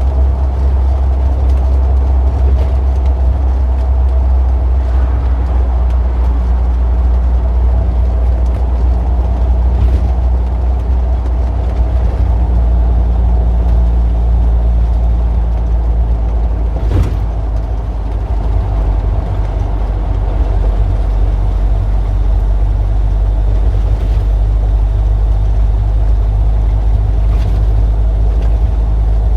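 Street traffic: a steady, loud low engine rumble with a few steady hum tones, as vehicles run or idle close by. A few brief clicks, the clearest about 17 seconds in.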